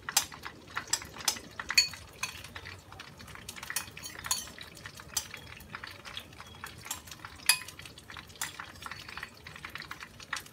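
A metal spoon stirring in a ceramic bowl, clinking and scraping against its sides in many irregular taps, some with a short ring. Underneath, a faint steady sizzle of oil frying in the pan.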